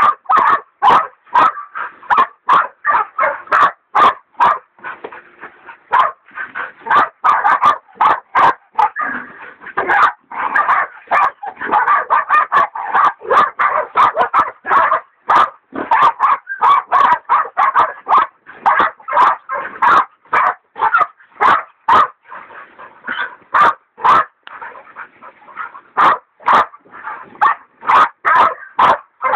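Hog dogs baying a wild sow: a continuous, irregular run of sharp barks, about two or three a second, as the dogs hold the hog at bay.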